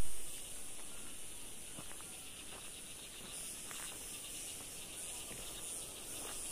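Steady high-pitched chorus of forest insects, with a short knock at the very start and a few faint ticks.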